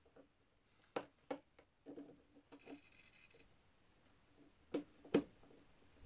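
Multimeter continuity beeper sounding as the probes touch the emergency-stop switch's contacts: a few sharp clicks of the probes, then about halfway in a crackle that settles into a steady high-pitched beep, showing the switch contacts are closed and conducting. Two more sharp clicks come near the end while the beep holds.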